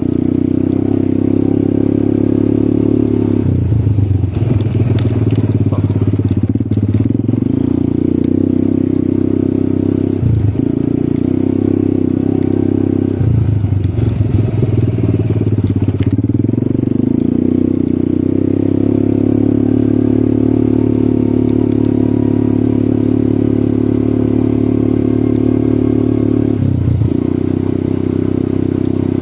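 ATV engine running steadily, its pitch shifting a few times as the throttle changes, with scattered clicks and crackles around the first quarter and the middle.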